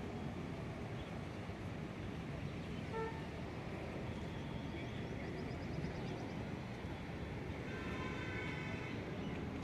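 Steady low rumble of outdoor ambience, with a brief vehicle horn toot about three seconds in and a longer horn sounding near the end.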